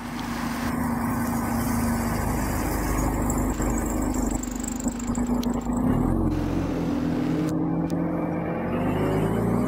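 A motor vehicle running with a steady low hum. Its pitch shifts and dips about six seconds in.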